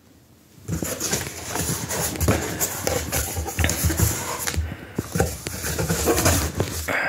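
Cardboard box flaps being pulled open and handled, with crackling plastic wrap around the packed tail lights. It begins under a second in as irregular rustling and crinkling with sharp clicks.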